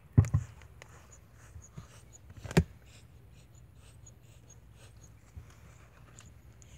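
Handling noise: faint rustling and rubbing, with sharp knocks just after the start and a louder one about two and a half seconds in.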